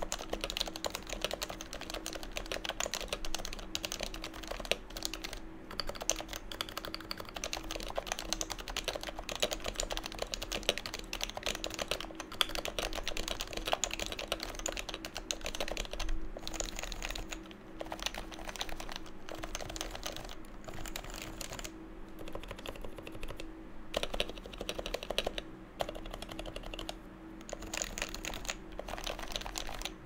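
Continuous fast typing on an HHKB Professional 2 keyboard with 45g Topre electrocapacitive switches (lubed sliders) and PBT keycaps: a dense stream of keystrokes with a few brief pauses.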